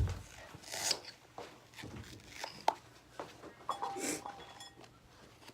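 A knife rubbing and scraping as it cuts through the cubes, with scattered handling noises, a knock at the start and a sharp click about halfway through.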